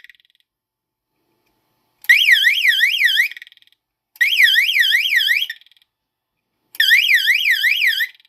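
Fire alarm sounding a fast warbling electronic tone that sweeps up and down about five times a second, in three bursts of a little over a second with silent gaps between. The alarm has been set off by a thermostat wired into the fire alarm circuit.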